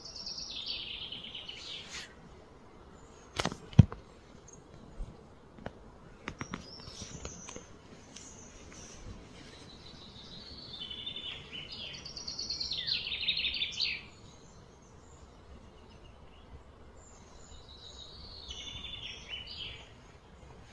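Bird song in three bouts of fast, falling trills, near the start, in the middle and near the end, over a steady outdoor background hum. A single sharp click a few seconds in is the loudest sound, with a few lighter clicks after it.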